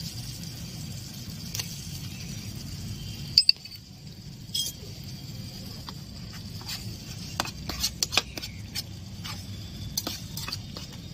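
A small metal spoon and spatula clinking and scraping in a miniature steel pot while a masala gravy is stirred: scattered light clinks, with a sharper double clink about three and a half seconds in and quicker clinks later on.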